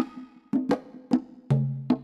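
Background music: a percussion-led track with a steady rhythm of sharp knocks and a low bass note coming in about one and a half seconds in.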